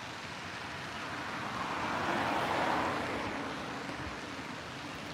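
A car drives past on the road alongside the path. Its tyre and engine noise swells and fades, loudest about halfway through, over a steady background hiss.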